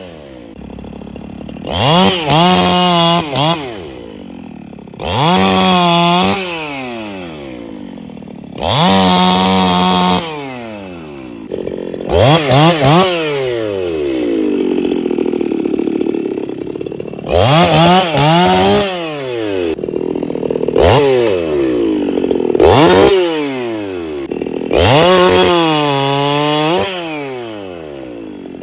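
Two-stroke chainsaw on a freshly sharpened chain, opened up to full throttle about seven or eight times, each time for one to two seconds, and dropping back to idle in between.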